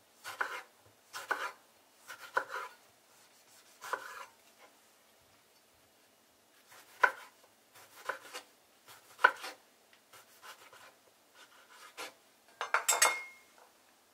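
Santoku-style chef's knife slicing a tomato on a wooden cutting board, each stroke a short knock of the blade on the board, about one a second. There is a pause midway and a louder, longer clatter near the end.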